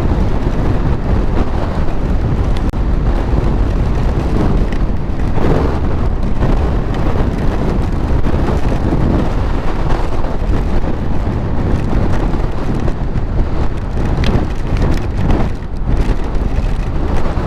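Gusting storm wind buffeting a helmet-mounted microphone in a steady, deep rush, with rain and a motorcycle's engine underneath, while riding through a monsoon storm.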